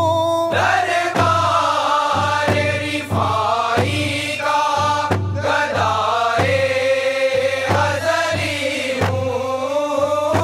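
Men singing a Sufi devotional qasida in long, held, gliding phrases over daf frame drums beating a steady rhythm of about three strokes every two seconds.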